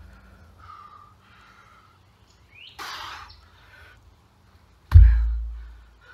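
A heavy odd-object weight dropped from overhead onto the forest floor, landing with one loud, deep thud about five seconds in that dies away over about a second. Just before, a short forceful breath as it is lifted, with birds chirping in the background.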